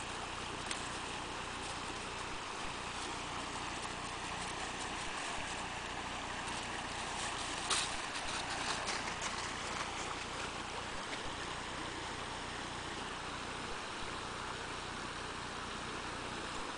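Creek water rushing steadily over rocks, with footsteps crunching and rustling through dry fallen leaves during the first half, the sharpest crunch about eight seconds in.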